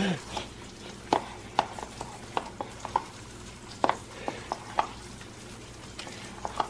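Biscuit dough being stirred and mixed by hand in a ceramic bowl: irregular light clicks and taps against the bowl, once or twice a second, over a faint frying sizzle and a steady low hum.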